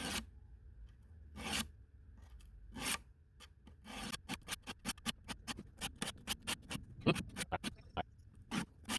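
Stainless knife blade stroked across a 400-grit diamond sharpening stone, a short scrape with each stroke: a few slow strokes, then quicker ones about three a second from about four seconds in.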